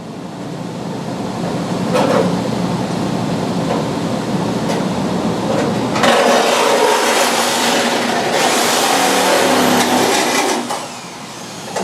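A power tool running on the car body's sheet metal while the old front clip is cut and drilled off. It builds up, gets louder and harsher about six seconds in, and eases off near the end.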